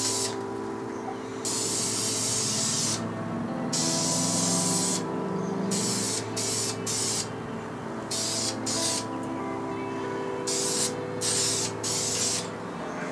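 Aerosol spray-paint can hissing in repeated bursts, some long sweeps of a second or more and several quick short puffs, as paint is sprayed on. Background music plays underneath.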